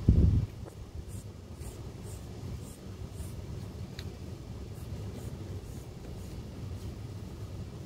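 Mechanical pencil scratching on sketchbook paper in short strokes as lines are drawn. A low thump right at the start is the loudest sound, over a steady low rumble.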